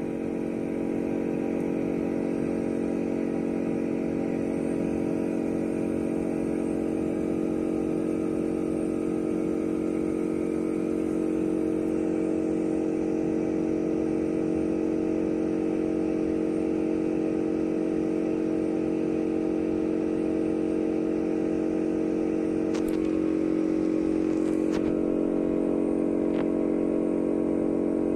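A steady electronic buzzing drone held at one pitch throughout, with a few faint clicks and a slight brightening of the tone a little over three quarters of the way in.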